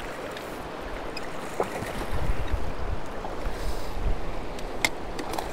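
Water splashing as a hooked fish thrashes at the surface and is scooped into a landing net beside a raft, over the steady rush of moving river water. A sharp tap comes near the end.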